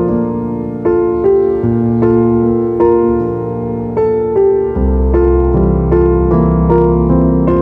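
Solo piano playing slow, gentle instrumental Christmas music, notes struck and left to ring, with deeper bass notes coming in about five seconds in.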